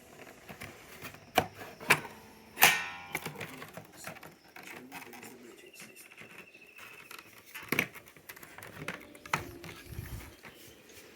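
A series of scattered clicks and knocks, the loudest about two and a half seconds in with a brief ringing after it.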